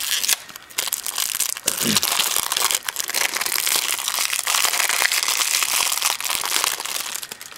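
Thin clear plastic wrapping crinkling and rustling steadily as a 3x3 puzzle cube is unwrapped and pulled out of its bag.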